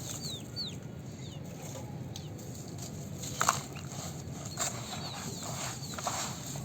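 Clumps of gritty red dirt crumbling, with short scattered crackles and one sharper crack about halfway through. Birds chirp in the background in short falling whistles, near the start and again later.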